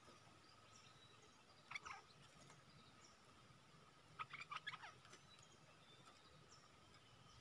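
Bulbul calling faintly: a short bubbly phrase about two seconds in, then a longer run of quick chirpy notes a little after four seconds.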